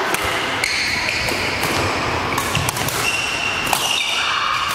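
Badminton rackets striking shuttlecocks in sharp cracks, several every second from rallies on neighbouring courts, with sneakers squeaking on the court floor. The hits echo in a large sports hall.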